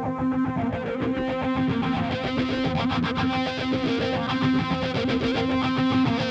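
Soundtrack rock music: a guitar passage of quick, evenly picked notes over a steady held tone.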